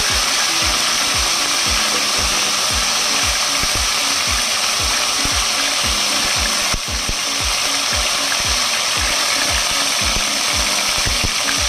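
Chicken breast frying in oil in a wok, a steady hiss of sizzling, over background music with a steady beat.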